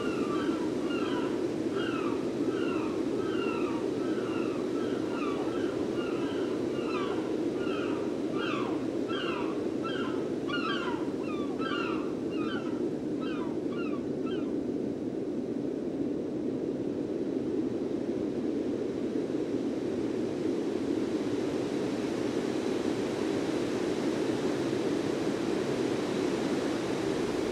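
Gulls calling, a rapid series of short pitched calls about two a second that stop about halfway through, over a steady low rushing noise.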